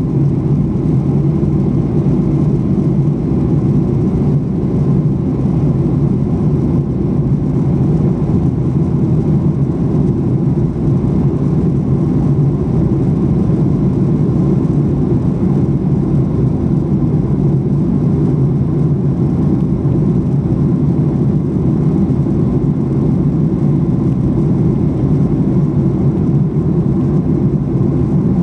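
Steady cabin noise of a Boeing 737-800 in flight, heard inside the cabin: the even, low rush of its CFM56 engines and the airflow over the fuselage, unchanging throughout.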